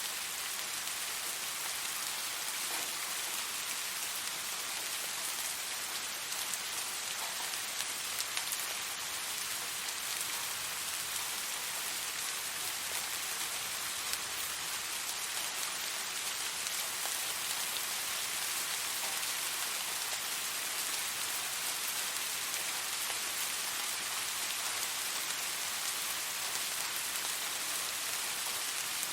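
Steady rain falling, an even hiss of many small drops with occasional faint individual drop ticks.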